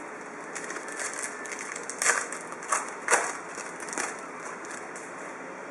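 Foil wrapper of a football trading card pack being torn open and crinkled, with the sharpest crackles in the middle.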